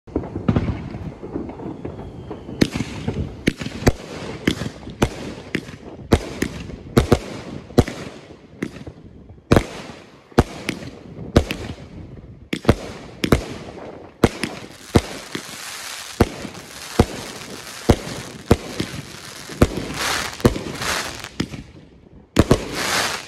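Aerial fireworks firing shot after shot, sharp bangs about twice a second. From about halfway through, a crackling hiss fills the gaps between the bangs.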